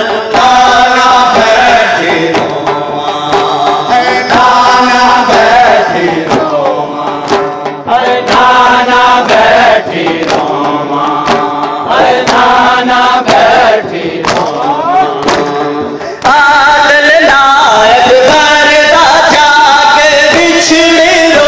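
A noha, the Shia Muharram lament, sung through a loudspeaker by a lead reciter with a chorus of men chanting in unison, and sharp hand slaps of matam (chest-beating) keeping time. About sixteen seconds in, the chanting becomes louder and fuller.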